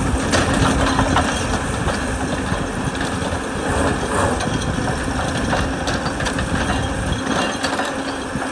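Heavy excavator's diesel engine running steadily, with scattered sharp knocks and clatter of rock being worked.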